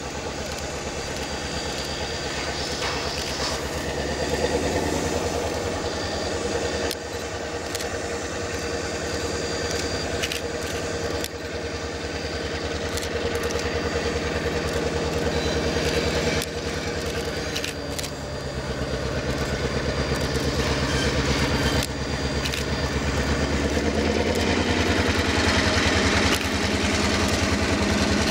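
Western Pacific 918-D, an EMD F7A diesel locomotive, running as it rolls slowly up. Its engine drone grows gradually louder as it approaches, over a steady hiss of steam from a standing steam locomotive alongside.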